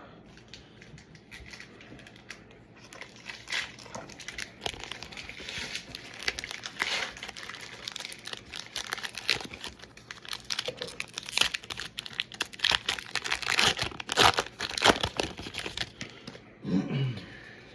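Foil booster-pack wrapper being torn open and crinkled, a dense run of sharp crackles that gets louder past the middle.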